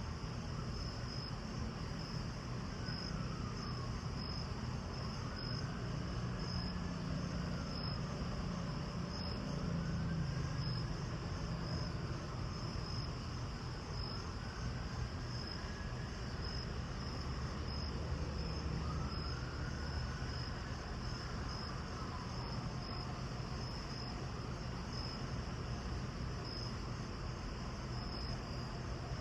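Insect chirping, likely a cricket, a short high chirp about once a second over a steady low rumble and hiss.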